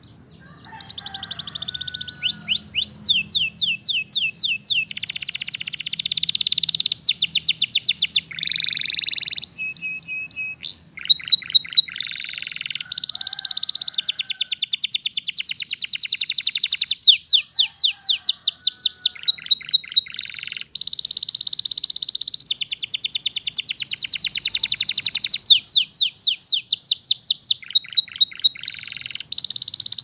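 Domestic canary singing a long, continuous song made of fast trills and rolls. Each phrase is a rapid run of one repeated note, and the song switches between higher and lower phrases with only brief breaks. It starts about a second in.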